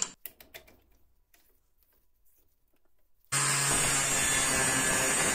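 A few faint clicks as a grinding disc is handled on the spindle, then about three seconds in a Greenworks brushless angle grinder starts suddenly and grinds the edge of a steel plate: a loud, steady grinding noise.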